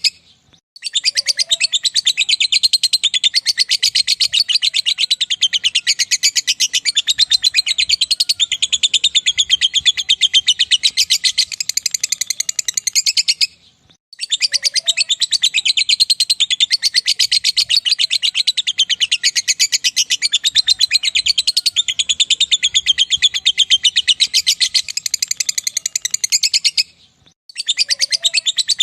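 Lovebird singing ngekek: a long, rapid, high chattering trill held for many seconds at a time. It breaks off briefly about a second in, near halfway and shortly before the end, and each run sounds the same.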